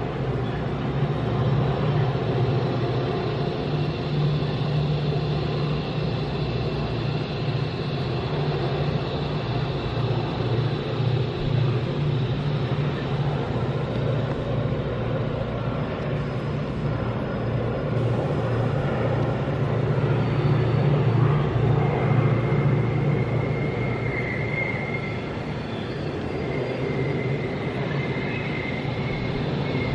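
Diesel-hauled freight train heard from far off: a steady low locomotive engine drone under the rumble of the wagons, with a thin high whine joining in about two-thirds of the way through.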